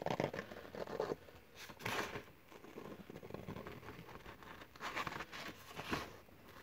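Scissors snipping through stiff gasket paper, the sheet crinkling as it is turned between cuts. There are bursts of snipping near the start, about two seconds in, and again around five and six seconds in.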